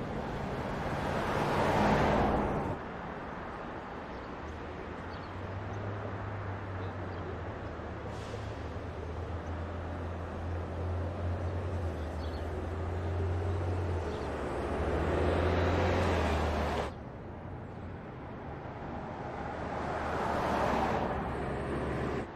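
Cars driving past on a city street in three separate shots: a pass-by swelling about two seconds in, then a long, steady low engine hum that grows louder as the Mercedes-Benz S 560 Cabriolet approaches and is cut off abruptly about 17 seconds in, then another vehicle passing near the end. Each pass ends in a sudden cut rather than fading away.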